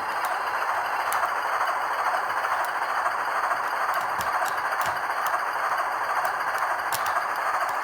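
HO-scale Roco shark-nose model diesel locomotive running, with a steady whir from its cheap three-pole motors and gears mixed with its DCC sound decoder's diesel sound from the shell speaker. A few sharp clicks come through it.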